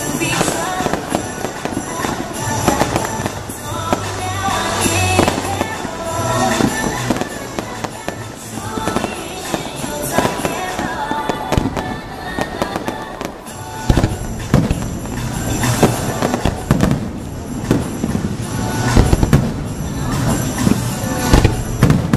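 Fireworks show going off in a string of bangs and crackles over music. The bangs come thicker and louder about two-thirds of the way in.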